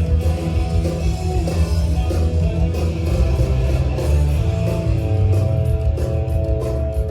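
Loud music with heavy bass and a steady beat.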